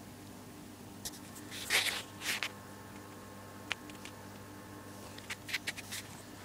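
Short rustling bursts about two seconds in, then a quick run of light clicks near the end from a small dog's claws on a tile floor, over a steady low hum.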